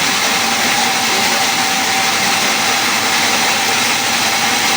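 Woodworking machine running steadily: an even, loud mechanical noise with a constant whine.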